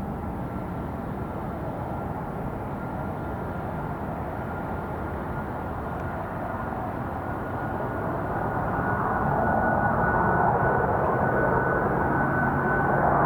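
Fixed-wing aircraft engine noise, a steady roar with a thin high whine that creeps up in pitch. It grows louder from about eight seconds in as the plane draws nearer.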